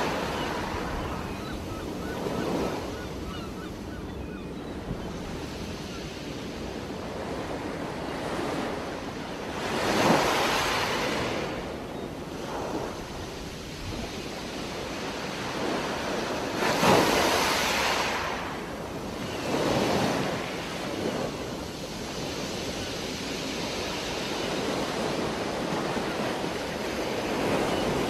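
Steady underwater rushing picked up through a dive camera's housing. It swells three times, about a third of the way in and twice past the middle, the way a scuba diver's exhaled bubbles from the regulator do.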